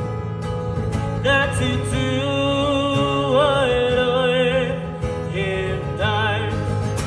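A man singing through a microphone and small amplifier over a strummed acoustic guitar. The voice comes in about a second in with a long, wavering held note, then a shorter phrase near the end, while the guitar keeps strumming chords.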